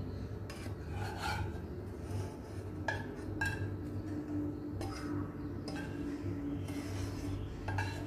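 Wooden spatula scraping fried pork pieces out of a pot and dropping them into a pan: irregular scrapes and light knocks over a steady low hum.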